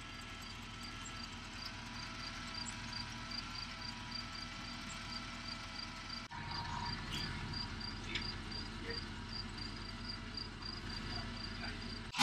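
A cricket chirping in a steady rhythm of short, high-pitched pulses, about two a second, over a faint steady hum.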